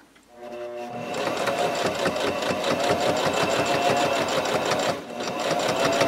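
Electric sewing machine top-stitching through the layers of a quilted fabric piece. It starts from a stop about half a second in, winds up to a fast, even stitching rhythm and keeps it up, slowing briefly about five seconds in before picking up again.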